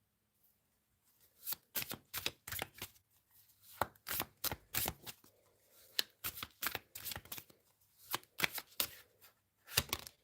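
Tarot cards being shuffled by hand: a run of short, irregular card sounds starting about a second in.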